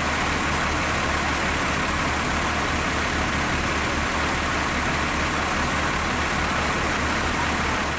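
Bus engine idling steadily, with a low, even throb.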